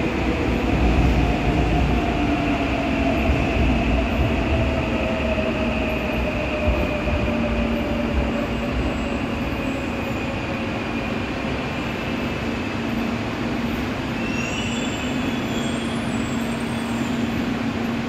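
A Seoul Subway Line 3 electric train braking to a stop at the platform. Its motor whine slides down in pitch as it slows and the wheel rumble fades, a steady hum sets in about halfway, and there are a few brief high squeaks near the end.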